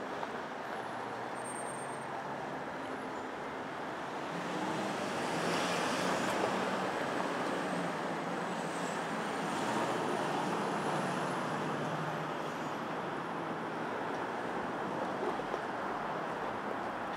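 Street traffic: a steady roar of road noise from passing cars and trucks, swelling as vehicles go by about five seconds in and again around ten seconds.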